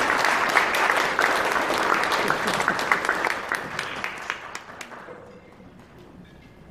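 Audience applauding: dense clapping that thins out and fades away about five seconds in.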